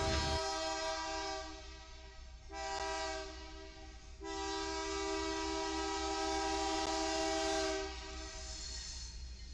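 BNSF diesel locomotive's air horn sounding a chord of several tones as the train approaches: a long blast, a short one, then another long blast that dies away near the end. This long–short–long pattern is the end of the standard grade-crossing signal.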